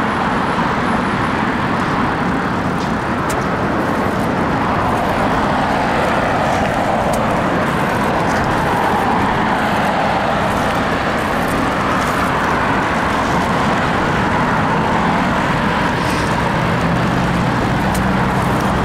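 Steady road traffic noise from passing cars and trucks. A low, steady engine hum from a nearby vehicle joins in near the end.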